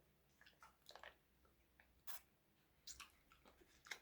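Faint wet mouth sounds and small scattered smacks and clicks of someone eating a soft grape jelly.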